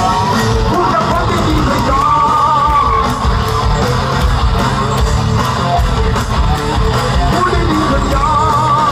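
Live band music heard loud through a stage PA: a man singing with a wavering held note, over guitar and drums.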